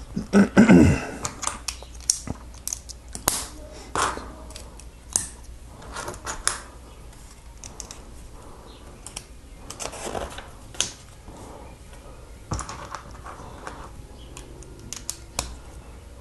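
Small plastic Lego bricks and plates clicking and tapping as they are handled and pressed together, in irregular clicks.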